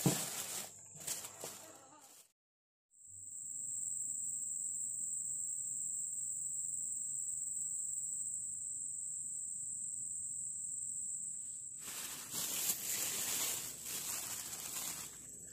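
A cicada drones in one steady high-pitched tone for about nine seconds, starting after a brief dropout. Before and after it, a plastic bag and pineapple peel rustle as they are handled.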